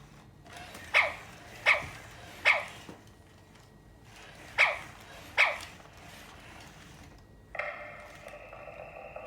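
Sony aibo robot dog giving five short, sharp barks that fall in pitch. About 7.5 seconds in, a longer steady electronic tone follows.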